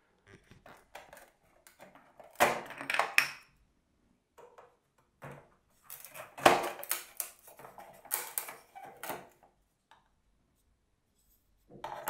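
Thin laser-cut wooden pieces handled and knocked together: irregular light clicks and clatters, with louder rattling bursts about two and a half, six and a half and eight seconds in.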